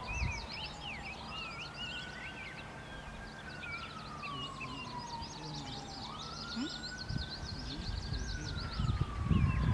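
Emergency-vehicle siren on a slow wail, rising and falling about every five seconds, with small birds chirping throughout. A low rumble swells near the end.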